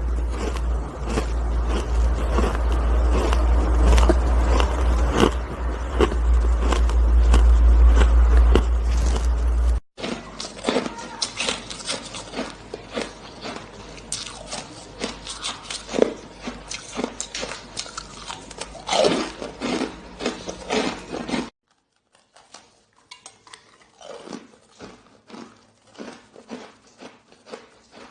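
Close-up crunching and biting of hard, crusty shaved ice, a dense run of sharp crunches. The first part is loudest, with a steady low rumble beneath it. The sound cuts abruptly about ten seconds in and again near three quarters of the way through, each time to quieter crunching.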